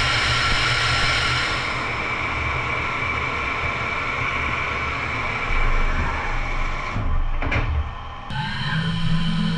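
Studer S33 CNC grinder running, its grinding wheel working a steel gear under a flood of coolant: a steady hiss of spray with a high whine through the first several seconds. A little past eight seconds the sound shifts to a steady lower hum.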